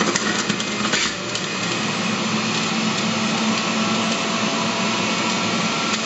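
Solac Fruit Cocktail centrifugal juicer running steadily on speed setting 1, its motor humming while mandarin segments are pushed down the feed chute and shredded, with a few light clicks in the first second.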